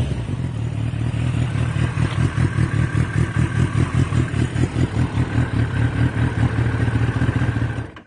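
Kawasaki Ninja ZX-10R inline-four idling steadily through a Yoshimura R-11 exhaust, with an even pulsing beat. It cuts off suddenly at the end.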